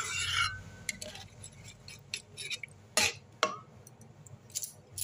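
A metal spatula scrapes and stirs round a pan of thin curry for about half a second. It is followed a little after halfway by two sharp clacks in quick succession, with a few faint ticks.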